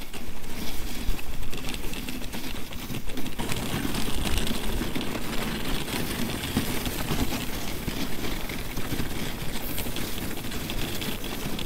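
Dog sled running over an icy snow trail: the runners scrape and the sled rattles in a steady, dense noise with fast fine clatter.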